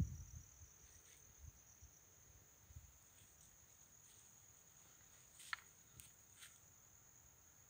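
Faint, steady, high-pitched insect trill, cricket-like, running on without a break. A low bump right at the start and a few sharp clicks around five and a half to six and a half seconds in.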